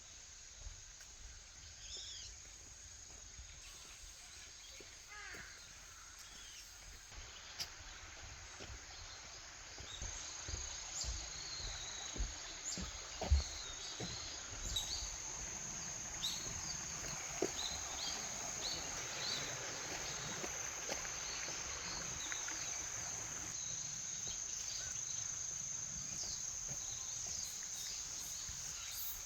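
Autumn forest ambience: insects trilling steadily at a high pitch, growing louder about ten seconds in, with scattered short bird chirps and a few low knocks, the loudest about thirteen seconds in.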